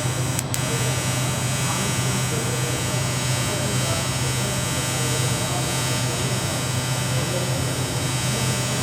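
Arc welding on a 2G test joint: a steady electric buzz-hum with hiss, unbroken throughout, with a single short click about half a second in.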